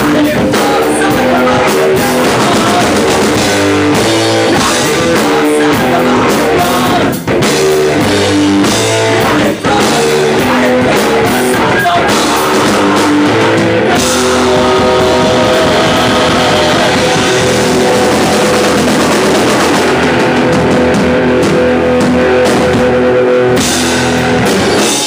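Live rock band playing: electric guitar, bass and drum kit, with two short stops about seven and nine and a half seconds in, then long held chords ringing out over the drums toward the end.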